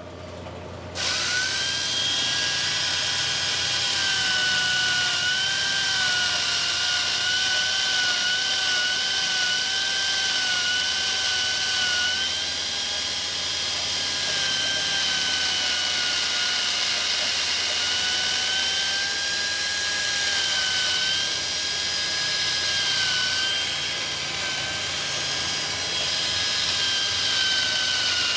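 Handheld power tool running continuously as it cuts into the top of a tree trunk, starting about a second in: a steady high whine over a rasping hiss, its pitch wavering slightly as the tool bites into the wood.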